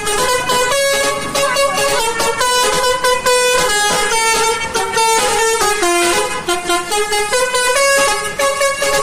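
Indonesian bus 'telolet' horn, a set of musical air horns, playing a melody: pitched horn notes that change step by step several times a second without a break.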